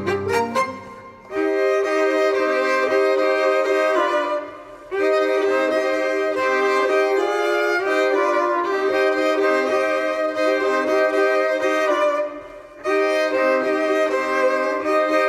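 Music on a bowed violin, played as long held notes in phrases, with short breaks about a second in, around four and a half seconds, and near twelve and a half seconds.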